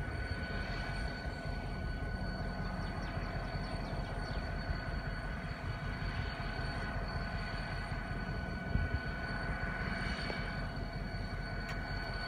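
Diesel locomotive running at a distance: a steady low rumble with a thin, steady high whine above it.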